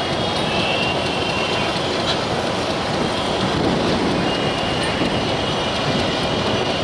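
Passenger train hauled by a WDM-3A diesel locomotive running on the track: a steady rumble and rattle of wheels on rail. A faint high whine comes in for a moment about half a second in and again from about four seconds in.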